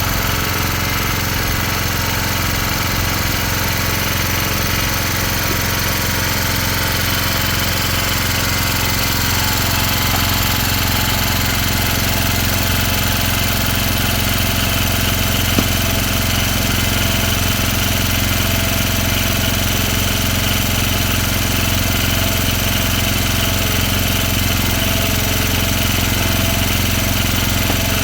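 An engine running steadily at one even speed, with a single brief tick about halfway through.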